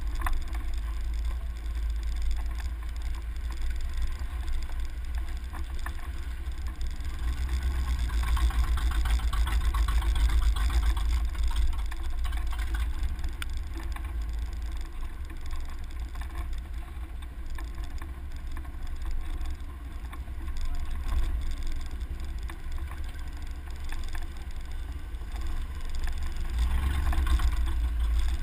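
Truck driving along a dirt trail, heard from a camera mounted outside on the door: steady engine and road noise over a heavy low rumble. It grows louder about eight to eleven seconds in and again near the end.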